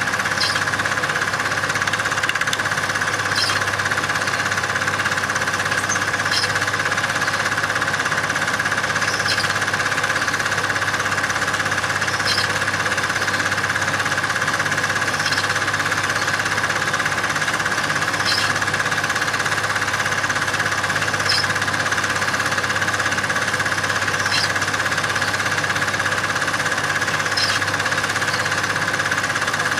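Steady mechanical running noise that never changes speed, with a faint tick coming back about every three seconds.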